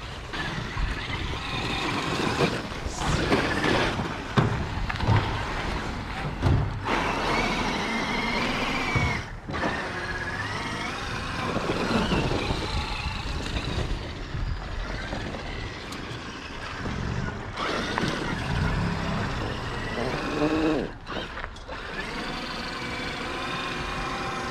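Traxxas X-Maxx electric RC monster truck, on 8S power, driving through snow. The motor's whine rises and falls with the throttle over the noise of the tyres churning snow, with a few brief drops where it lets off.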